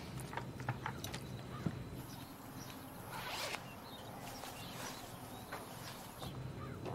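Quiet handling sounds: faint scattered taps and light footsteps, with a short rasp about three seconds in as a hooded sweatshirt's zipper is undone.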